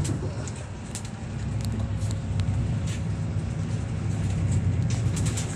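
Steady low drone of a coach bus's engine and road noise heard inside the passenger cabin while the bus is moving, with a few faint clicks or rattles.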